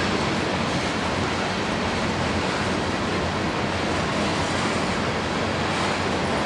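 Covered grain hopper cars of a freight train rolling past, a steady, even rushing noise of wheels on rail without distinct clicks.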